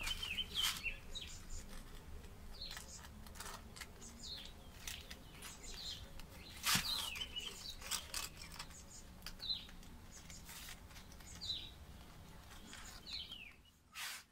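A bird chirping again and again outdoors, short falling chirps every second or two. Scattered sharp clicks and taps from hands working at the wall come in between, the loudest about seven seconds in and just before the end.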